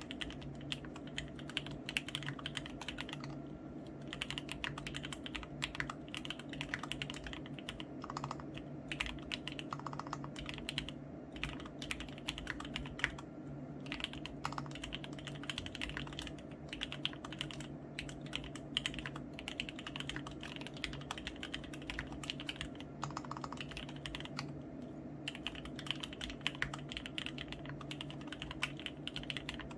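Continuous fast typing on a mechanical keyboard with an acrylic plate, lubed Gateron Black Ink linear switches, Leopold keycaps and sponge dampening: a dense run of keystrokes with a few brief pauses, over a steady low hum.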